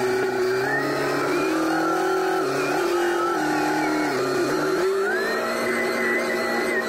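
SkyTrak telehandler's diesel engine running under load while it carries a bundle, its pitch stepping down and back up several times. A higher whine rises about five seconds in and holds near the end.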